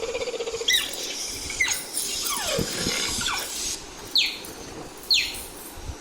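Cheetah purring briefly at the start, then a series of short, high, bird-like chirps, each falling in pitch, about a second apart, with one lower falling call in between.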